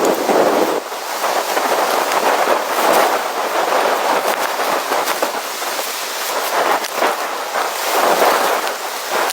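Blizzard wind blowing in gusts, a dense rushing noise that swells and eases every few seconds.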